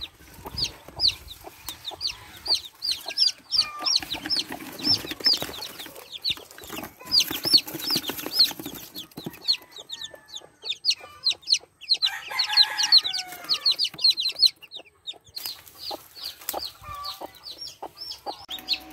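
Newly hatched chicks peeping constantly: short, high, falling peeps, several a second from many chicks at once. A lower, longer call breaks in about two-thirds of the way through.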